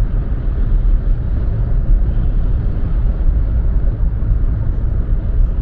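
Car driving at highway speed, heard from inside the cabin: a steady, deep rumble of road and tyre noise.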